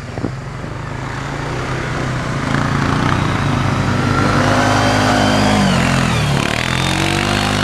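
ATV engine running as it pulls a snow tube, getting louder as it draws near and passes close. The engine note drops about six seconds in, then picks up again.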